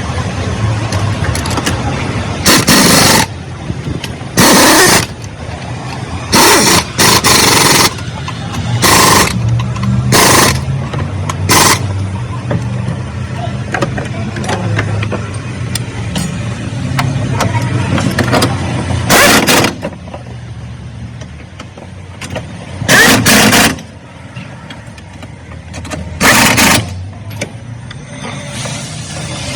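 GAC GS3 small SUV engine running at a steady idle, broken about ten times by loud, short bursts of noise lasting about half a second each, spaced unevenly.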